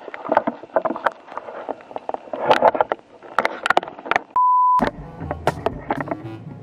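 A run of sharp knocks and clatter as the camera knocks about against the noodle bowl. About four and a half seconds in comes a loud, steady censor bleep lasting about half a second, and then background music starts.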